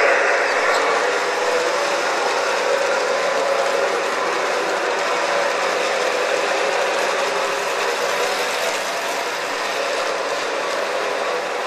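O-gauge model train rolling past on three-rail track: a steady mechanical clatter of metal wheels on the rails. It is loudest at the start as the diesel locomotive goes by and eases off slowly as the freight cars follow.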